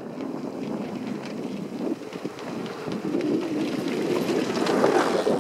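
Two velomobiles rolling past on asphalt: a rushing tyre-and-wind noise with small scattered clicks, growing louder towards the end, with wind buffeting the microphone.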